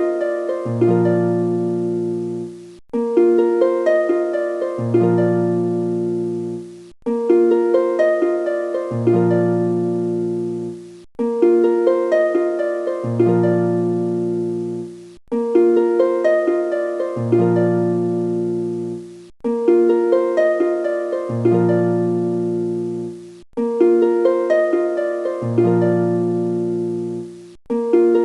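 Background music: a short plucked harp-like phrase looping about every four seconds, each repeat fading before the next begins.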